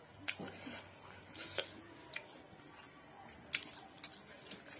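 Quiet eating sounds: a scattering of short clicks and smacks, about eight in under five seconds, as a person handles and eats momo dumplings by hand.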